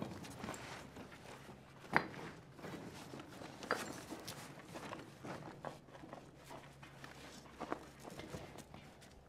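Scuffing footsteps, clothing rustle and scattered knocks as people climb through a rough hole in a concrete wall, the sharpest knock about two seconds in, over a low steady hum.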